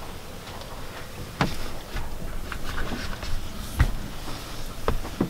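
A few sharp knocks and bumps with rustling, from someone climbing into a plastic sleeping capsule and handling the camera.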